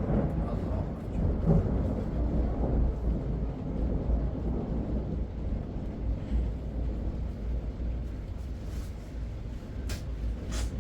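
Strong wind gusting and rumbling in heavy weather, rising and falling, with two sharp clicks near the end.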